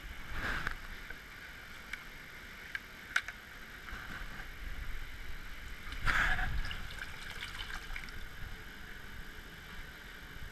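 Water splashing and pouring as a bowl of salmon fry is tipped into a hatchery rearing trough, over the steady trickle of the trough's running water. Two louder splashes come, about half a second in and about six seconds in, with a few small clicks between.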